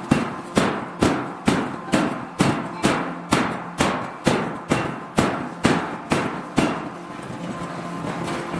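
Hammer blows on metal during forging, a steady rhythm of about two sharp strikes a second that stops about two-thirds of the way through, over a steady machinery hum.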